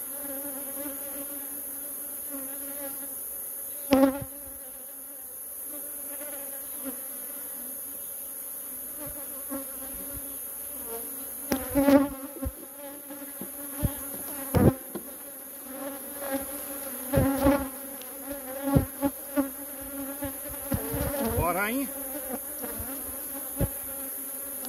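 Honeybees buzzing around an opened hive, a steady hum. Sharp knocks and clicks break in now and then, most of them in the second half, and one buzz rises in pitch about three-quarters of the way through.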